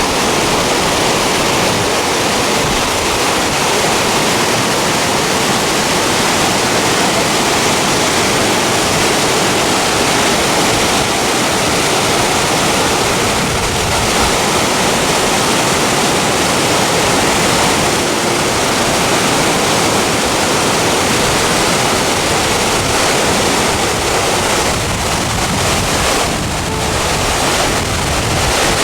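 Hebbe Falls, a waterfall, giving off a steady, loud rush of falling water.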